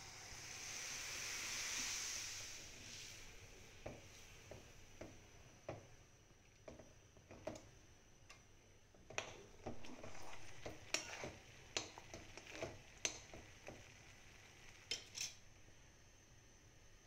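Liquid poured into a hot kadai of frying masala, hissing and sizzling briefly at the start. Then a steel spoon stirs the gravy, clinking and scraping against the metal pan in a long run of sharp taps.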